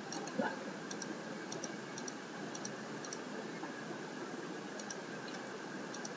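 Computer mouse clicking in quick pairs, press and release, several times, over a steady hiss.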